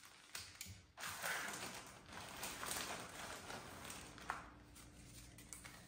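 Faint rustling and crinkling of a clear plastic zipper bag being handled, with one short, sharp click about four seconds in.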